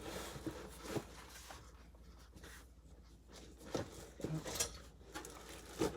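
Scattered light clicks and taps with soft rustling, from computer parts and their packaging being handled; the sharpest click comes just before the end.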